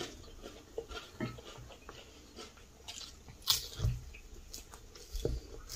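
Quiet eating sounds at a dinner table: chewing, and chopsticks clicking against ceramic bowls, with a sharper clink about three and a half seconds in and a soft thump just after.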